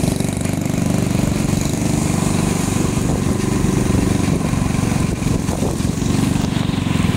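Small motorbike engine running steadily at riding speed, with a steady rushing noise of wind and tyres on a wet road.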